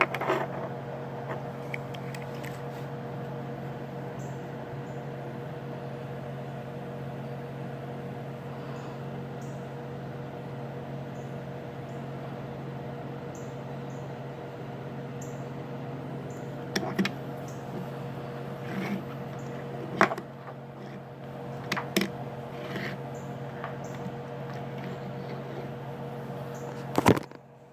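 A steady low machine hum with occasional sharp clicks and taps of small hard objects, the loudest tap just before the end.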